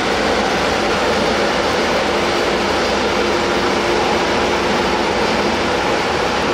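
Steady, unbroken machine noise from the Isuzu Giga street sweeper truck running, with a faint steady hum in the middle of it.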